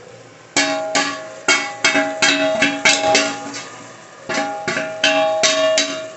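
Steel ladle striking and scraping a stainless steel plate to knock spice powder off it: about a dozen sharp, uneven strikes, each leaving the plate ringing at the same few pitches, with a pause of about a second midway.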